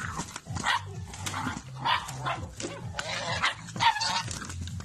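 Puppies barking and yipping in quick short bursts, about two a second, while scuffling with a goose over a food bowl.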